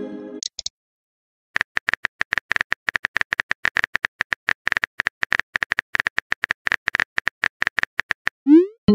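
Simulated phone keyboard typing: a rapid run of short clicks lasting about seven seconds, opening after the fading tail of a message chime. It ends with a quick rising swoosh as the message is sent.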